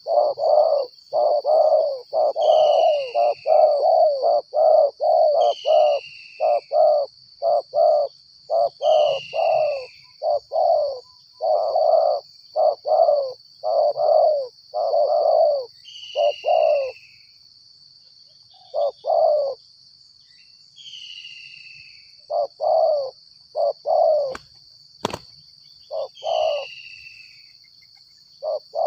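Spotted doves cooing, loud repeated coo notes in quick runs for the first half, then in shorter spaced groups. A steady high-pitched hum runs underneath, with a short falling chirp from another bird every few seconds, and two sharp knocks come close together near the end.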